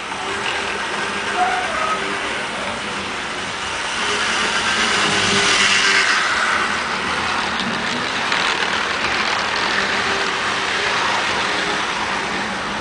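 HO scale model passenger train with a streamlined diesel locomotive running along the track, its wheels rolling on the rails. The rumble grows louder as the train passes close by about five to six seconds in, then eases near the end.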